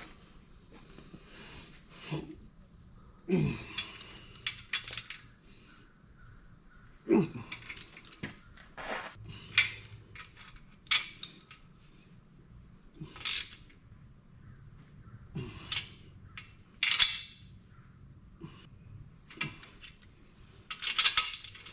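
Hand wrench on a cast-aluminium LS engine block's main bearing cap bolts: irregular sharp metal clicks and clinks as the cap is tightened down on Plastigauge to check the main bearing clearance, then loosened again.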